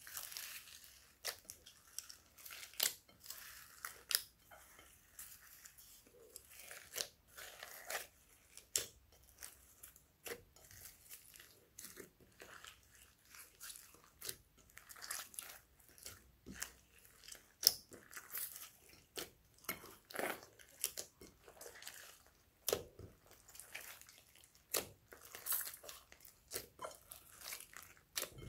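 Homemade slime mixed with foam beads and sprinkles being kneaded and squeezed by hand in a glass bowl: irregular sticky crackles, pops and squishes, a few a second.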